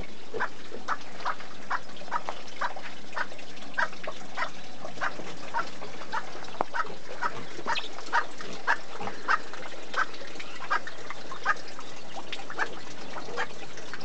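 Piglets grunting in short, evenly repeated grunts, about two a second.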